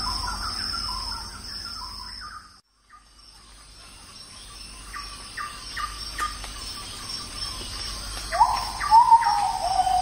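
Birds chirping and calling over a steady high insect drone. The sound cuts out for a moment about three seconds in. Near the end comes a louder bird call that rises and then falls.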